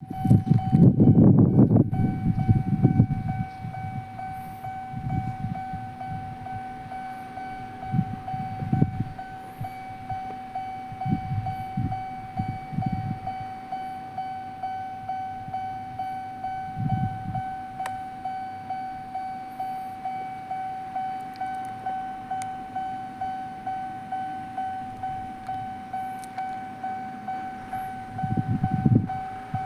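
Japanese level-crossing warning bell dinging steadily, about one and a half dings a second. A Sanyo Electric Railway train rumbles past loudly in the first few seconds, with shorter low rumbles from the line later and another near the end.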